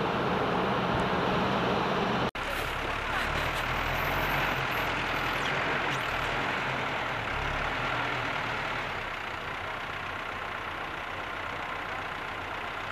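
Backhoe loader's diesel engine running steadily, heard after an abrupt cut about two seconds in. Before the cut there is a steady noise of a different take.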